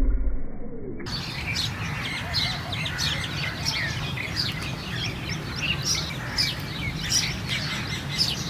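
Small birds chirping and twittering: a busy chorus of many short, quick calls that starts about a second in.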